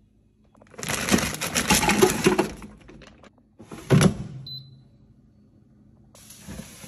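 A plastic bag crinkling and crackling as corn ribs are handled, then a loud clunk of the Gourmia air fryer's basket. A single short electronic beep follows from the control panel, and about six seconds in the air fryer's fan starts with a steady hiss.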